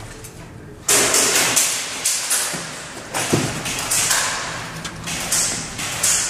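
Scuffing, crunching footsteps and scrambling over rubble and concrete, with clothing and gear rustling close to the microphone. It starts suddenly about a second in and comes in irregular surges, about one every half second.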